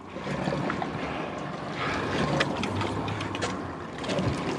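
Steady wind and water noise around a boat on open water, with a few faint clicks.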